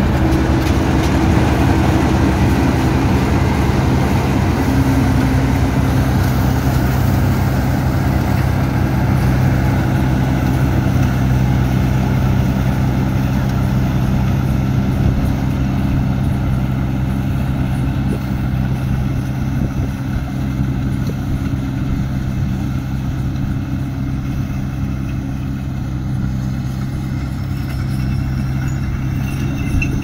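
Kubota DC-35 combine harvester running steadily at full speed while harvesting rice. Its diesel engine drones over a broad mechanical noise, easing off slightly toward the end.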